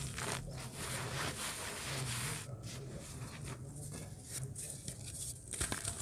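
Lumps of dry, soft dirt crumbled between the fingers: gritty crackling with powder and small grit sifting down onto the pile. The crackling thins out through the middle and picks up again near the end as a larger caked chunk is broken.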